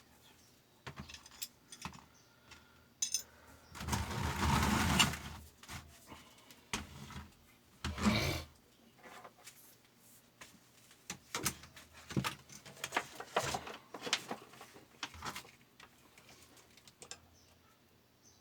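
Small metal parts and tools clinking and knocking as they are handled, with a louder scraping rush about four seconds in and a shorter one near eight seconds.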